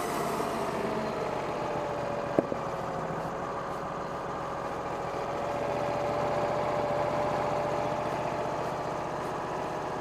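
Wood-Mizer sawmill's Kohler engine running at idle between cuts, its pitch dropping a little over the first few seconds and then holding steady. A single sharp click about two and a half seconds in.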